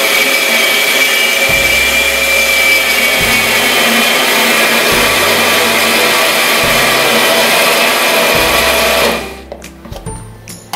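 Electric blender running at full speed, churning cream until the butter separates out. It cuts off suddenly about nine seconds in.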